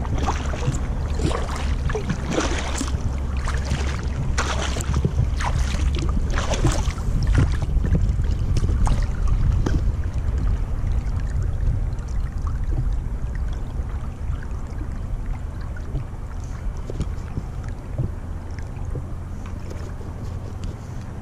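Double-bladed kayak paddle dipping and splashing with each stroke, water washing along the sea kayak's hull, over a steady low rumble of wind on the microphone. The splashes come about once a second and are strongest through the first half, then softer.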